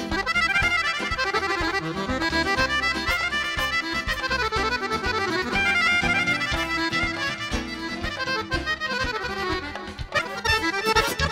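Chromatic button accordion playing a fast, busy melody of quick runs of notes in Balkan wedding-band style, with a drum kit keeping time underneath.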